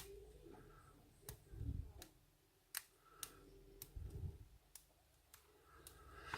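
Faint, scattered clicks of a lock pick and tension wrench working the pins of an Abus 54T1/50 padlock, with two dull bumps of the lock being handled.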